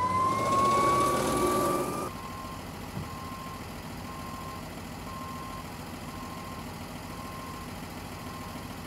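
Ambulance siren sweeping up in pitch and holding a high wail, cut off abruptly about two seconds in. Then vehicles idling, with a faint short beep repeating a little under once a second.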